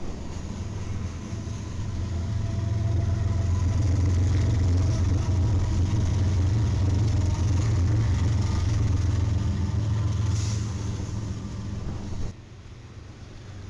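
BNSF diesel locomotives passing close by, a deep steady engine drone that swells over the first few seconds, holds, then eases off and drops away abruptly near the end.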